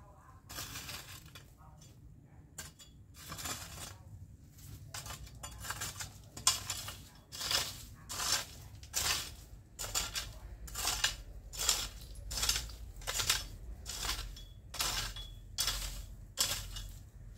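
Long-handled garden tool scraping and chopping dry soil and leaf litter in repeated strokes. The strokes are scattered at first and then settle into a steady rhythm of about one every 0.7 seconds.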